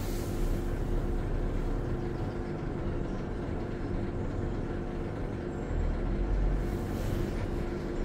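Samsung front-loading washing machine running: a steady mechanical hum, with a low rumble that swells about six seconds in.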